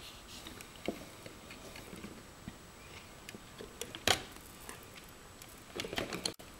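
Quiet room tone with scattered light clicks and taps. One sharper click comes about four seconds in, as power is switched on to the repaired compact fluorescent lamp, and a few more clicks follow near the end.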